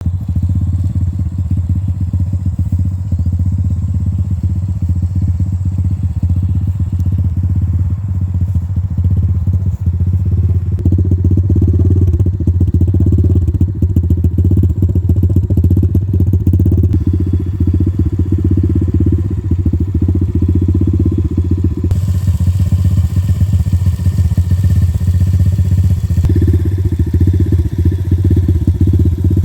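Stomp 120R pit bike's single-cylinder engine running steadily, a little louder from about eleven seconds in.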